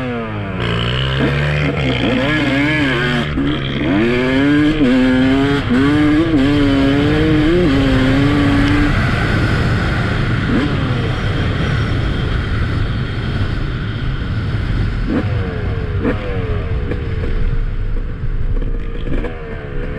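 Yamaha YZ250 single-cylinder two-stroke dirt bike engine revving, its pitch rising and dipping in repeated blips. About nine seconds in, the clear note gives way to a rougher, noisier engine sound, with a couple of brief rising revs later on.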